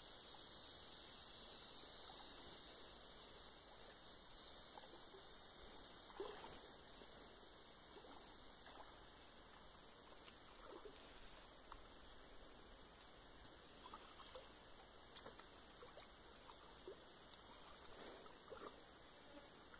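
Faint water sloshing and small splashes around a man wading chest-deep as he hauls in a cast net. A high insect buzz fades out about halfway through.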